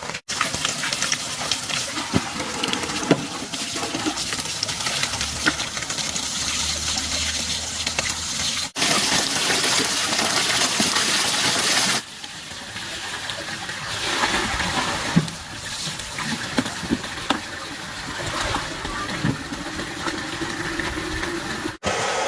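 Water splashing and running, with scattered small knocks, across several short cuts. A louder, steady gush of water runs from about 9 to 12 seconds in.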